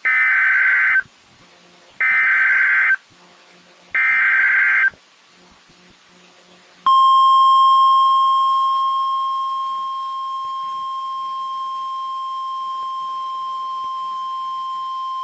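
Emergency Alert System activation on NOAA Weather Radio. First come three one-second bursts of SAME digital header data, about two seconds apart, encoding a Local Area Emergency for Ashland County. About seven seconds in, the 1050 Hz NOAA Weather Radio alert tone starts: a steady single tone that eases down slightly over the first few seconds and then holds steady.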